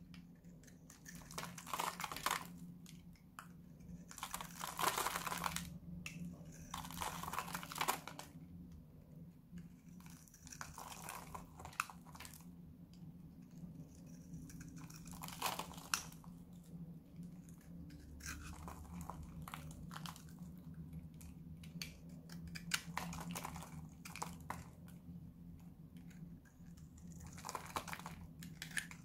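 Dry bar soap being shaved and scraped with a steel utility-knife blade: irregular scraping strokes every couple of seconds as dry flakes crumble off.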